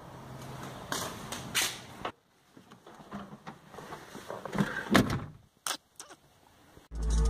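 Scattered knocks and clicks of handling, with loud bass-heavy music starting just before the end.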